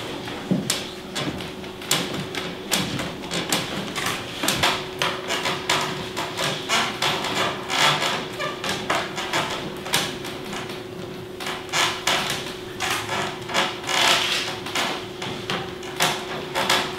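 Hands kneading, pressing and slapping a large heap of soft white dough, heard as a dense, irregular run of sharp slaps and squelches over a steady hum.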